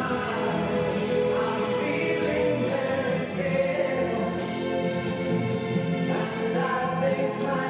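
Choral music: a choir singing long held notes, the chords shifting slowly.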